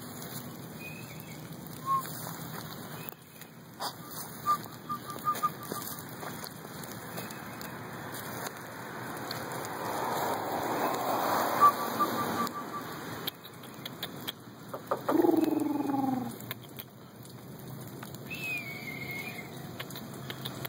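Puppies' paws pattering and rustling through dry leaf litter and mulch, with scattered small clicks, loudest about ten to twelve seconds in. A few short runs of high pips and a brief falling cry about fifteen seconds in stand out.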